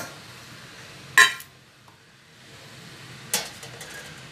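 Stainless steel bowl being set down into a perforated steel steamer tray: a sharp metal clank with a brief ring about a second in, then a lighter metal-on-metal clatter a little after three seconds.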